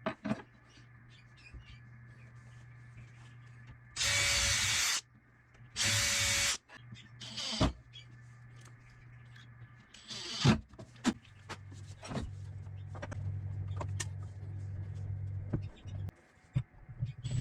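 Power drill running in two short bursts of about a second each, over a steady low motor hum, with a few knocks in between.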